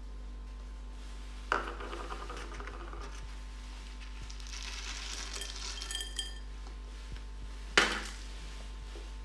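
Oat porridge and its toppings being served onto a ceramic plate: a knock against the plate about a second and a half in, a light rattle of almonds, dried blueberries and crisp pearls poured onto it a few seconds later, then a louder sharp clink near the end, over a steady low hum.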